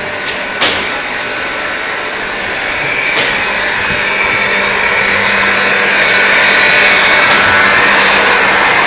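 PVC shoe moulding machinery running: a loud, steady hiss with a low hum underneath. A few sharp clicks come in the first three seconds, and the noise grows louder about six seconds in.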